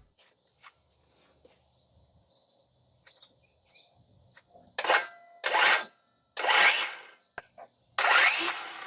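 A few faint ticks, then from about five seconds in four short scraping, rubbing sounds of wood, each half a second to a second long: a newly assembled wooden shelving frame being handled and checked.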